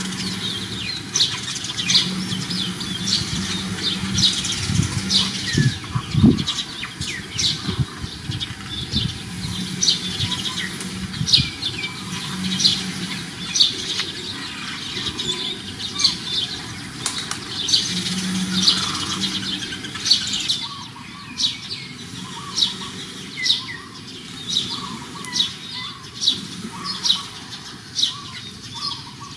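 Small birds chirping, short high chirps about one or two a second, over a low background hum that fades about two-thirds of the way through. A few low thumps sound about six seconds in.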